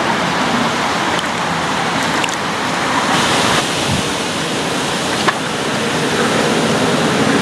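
Steady rushing of wind over the microphone at the riverbank, with one short click about five seconds in.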